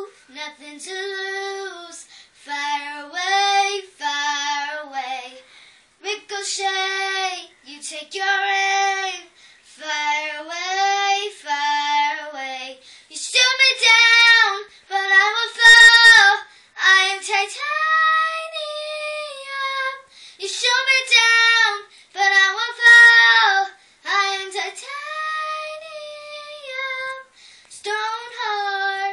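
A nine-year-old girl singing a pop song solo and unaccompanied, in phrases broken by short breaths, with some longer held notes. One brief knock sounds about halfway through.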